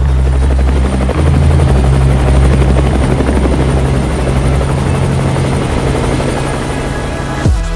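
Robinson R44 Raven II helicopter's piston engine and rotor running, growing louder about a second in, with a faint high whine over a steady low drone.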